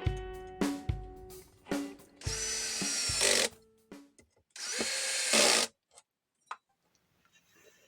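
Electric drill running in two short bursts of about a second each, after a few sharp percussive hits with ringing tones from background music; all stops about six seconds in.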